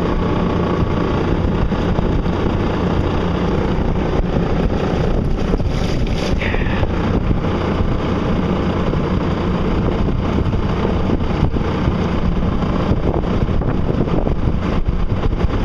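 Steady wind noise on the microphone over water rushing past the hull of a solar-powered electric boat under way.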